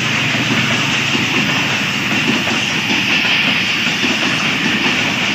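Passenger train coaches rolling past close by at about 40 km/h: a steady, loud rumble and rattle of steel wheels on the rails.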